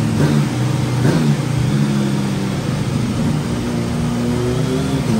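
Kawasaki Z900RS 948 cc inline-four running through a Black Widow full exhaust on a dyno. Two quick throttle blips in the first second or so, then the revs are held and climb slowly.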